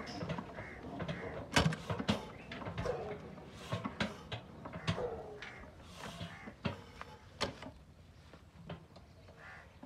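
Irregular knocks and clicks, a dozen or more spread over several seconds, loudest about a second and a half in and growing sparser toward the end.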